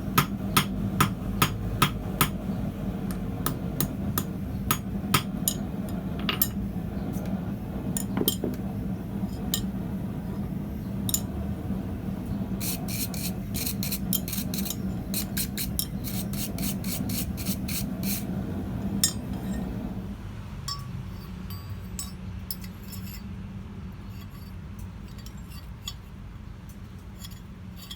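Hammer blows on steel at the anvil, about two a second at first, then scattered strikes and a quick run of lighter taps midway, over a steady low hum that stops about two-thirds of the way through.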